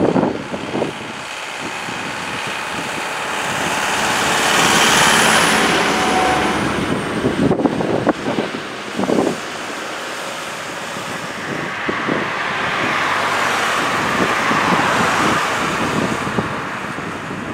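Wind buffeting the microphone over a steady outdoor rush that swells and fades twice, once a few seconds in and again near the end, much like road traffic passing.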